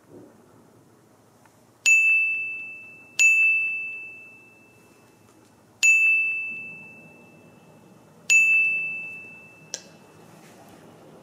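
A small bell-like ding, struck four times at the same high pitch, each ringing out and fading over a second or two, followed by a short click near the end.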